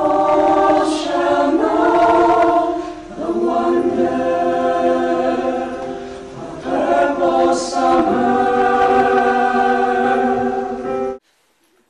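A mixed group of young men's and women's voices singing together on stage, holding long chords that shift to new ones about a second and a half in, about three seconds in, and about seven seconds in, then cutting off together abruptly near the end.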